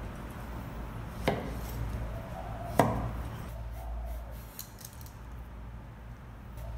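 Two sharp knocks of a kitchen knife on a cutting board during vegetable preparation, about a second and a half apart, with faint pigeon cooing and a steady low hum behind.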